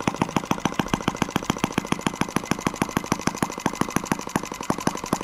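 Miniature M12B model engine running steadily. Its firing strokes make an even, rapid beat of sharp pops, about eight or nine a second.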